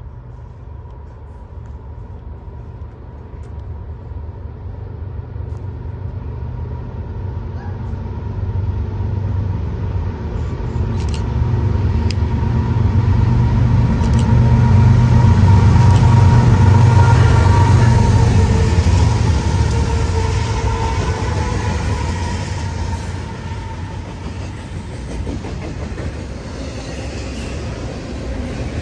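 Diesel-hauled train passing close by: a deep engine rumble that grows louder to a peak a little past halfway, then eases off slightly as the cars keep rolling past.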